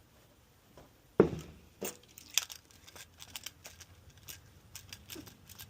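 A sharp knock, a second knock just after it, then a scatter of small clicks and rustles as things are handled.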